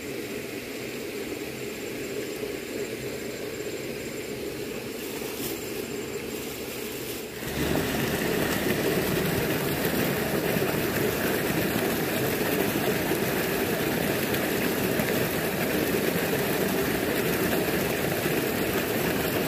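Water pouring over a small concrete weir into a stream: a steady rushing noise that gets suddenly louder about seven seconds in.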